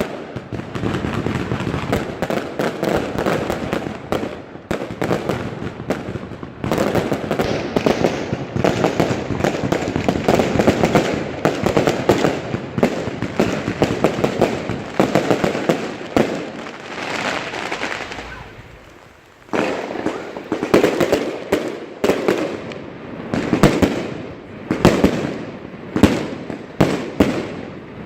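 New Year's Eve fireworks and firecrackers going off all around in a dense, continuous barrage of cracks and bangs, briefly easing off about two-thirds of the way through before picking up again.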